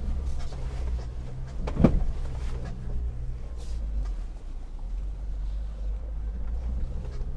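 The 2.4-litre turbodiesel of a JMC Yusheng pickup running low and steady as it crawls in low-range four-wheel drive, with one sharp knock from the vehicle a little under two seconds in and a few faint clicks.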